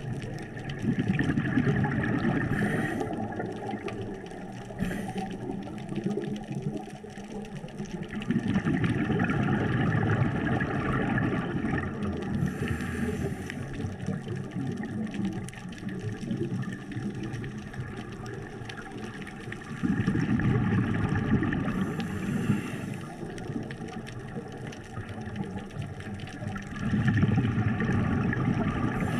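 A scuba diver breathing through a regulator underwater. Exhaled bubbles rumble and gurgle in four bursts of about three seconds each, and short hisses from the regulator fall between them.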